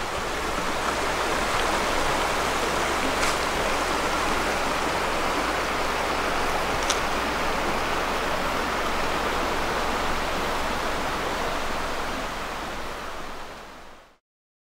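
Shallow rocky river running over stones: a steady rush of flowing water that fades out near the end.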